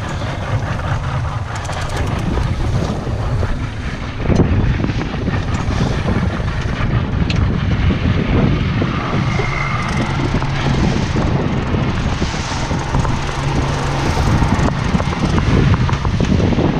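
A boat's engine running under way, with wind buffeting the microphone and water rushing past the hull, making a loud, steady noise.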